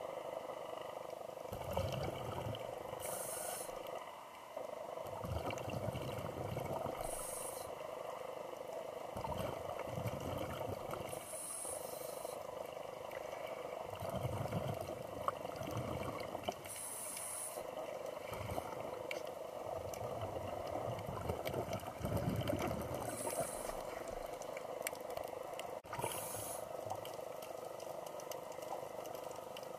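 Scuba diver breathing through a regulator underwater: a short hiss on each inhalation about every four to six seconds, and a low bubbling rumble as each breath is exhaled, over a steady background hum.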